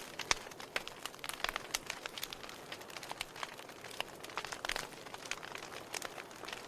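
Wood fire crackling in a fireplace: irregular sharp pops and snaps over a soft steady hiss, with a cluster of pops about a second and a half in and again around four and a half seconds.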